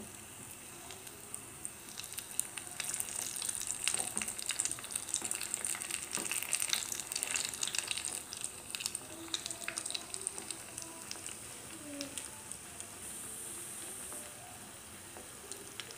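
Fish balls coated in crushed cornflakes deep-frying in hot oil in a small pan on a low flame: a steady sizzle full of fine crackling pops, busiest in the first half.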